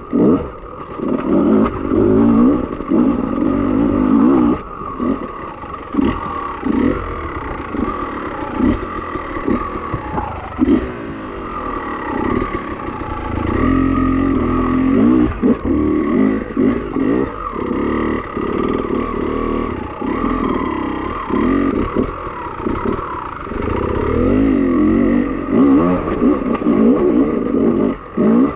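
Beta enduro dirt bike's engine revving hard and easing off over and over, with the throttle blipped on and off as it climbs a rocky trail. Short knocks and clatter come from the bike hitting the rough ground.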